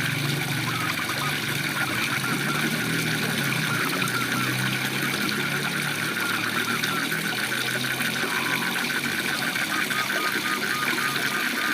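Waterfall rushing steadily, with a fast trilling chorus of frogs running through it and a low hum that comes and goes.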